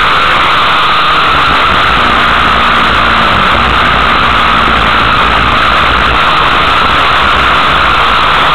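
Dirt-track race car engines running loud and steady, heavily overloading the recording into a constant distorted noise. A faint engine note shows through for a few seconds in the middle.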